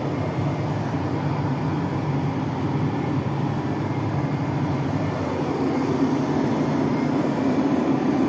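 A vehicle's engine and running noise, steady and unbroken, with a low hum.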